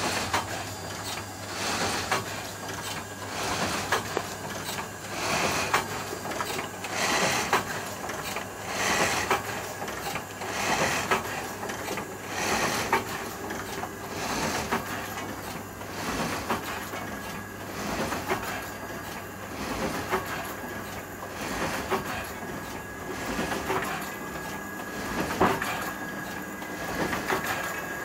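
C4 envelope-inserting mailing machine running, its feeders and transport working in a regular cycle of clacking and whirring that swells about every two seconds over a steady motor hum.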